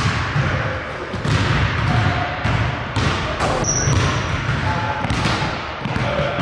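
Basketball-court sounds: sharp thuds on the gym floor every second or so, with a brief high sneaker squeak just past the middle.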